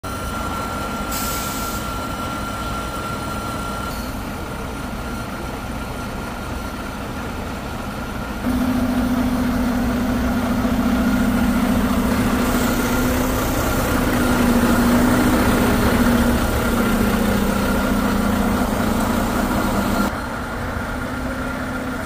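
Concrete pump truck's diesel engine running steadily while its boom folds down, with a steady high whine over the engine. A louder humming drone comes in sharply about eight seconds in and drops away about two seconds before the end.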